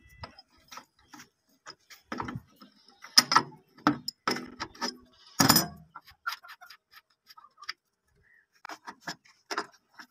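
Adjustable wrench clinking and knocking against a bolt and the steel frame of a stone flour mill as the bolt is worked, an irregular run of metallic clicks with a few louder knocks in the middle and softer ticks later on.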